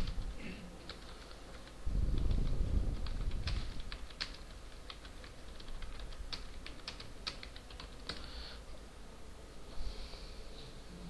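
Typing on a computer keyboard: a quick, uneven run of key clicks over about eight seconds. A low rumble comes in about two seconds in and lasts a couple of seconds.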